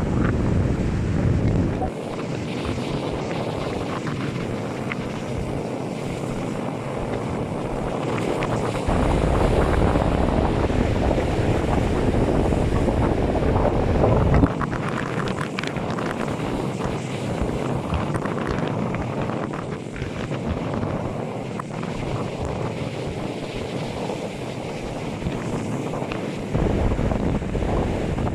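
Strong gusting wind buffeting the microphone over the wash of rough sea surf. The deep rumble of the wind comes and goes, strongest in the first two seconds, from about nine to fourteen seconds, and again near the end.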